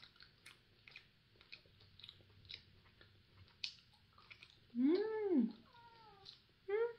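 Wet mouth clicks and smacks of a soft pear gummy being chewed. About five seconds in, a cat meows: one loud call that rises and falls, a softer second meow, and a short third one just before the end.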